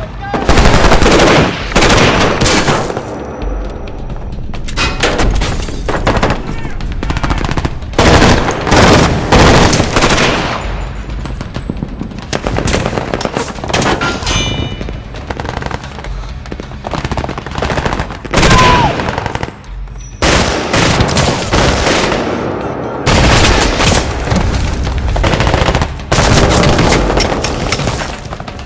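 Automatic gunfire from several guns in long, dense volleys of rapid shots, broken by short lulls. These are layered, sound-designed gunfire effects with music underneath.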